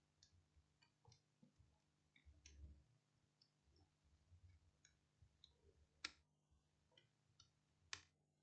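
Near silence with scattered faint clicks and ticks, a soft low thump about two and a half seconds in, and two sharper clicks, one past the middle and one near the end.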